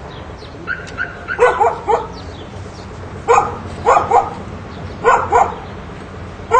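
A dog barking repeatedly: short barks, mostly in quick pairs, about once every second or so.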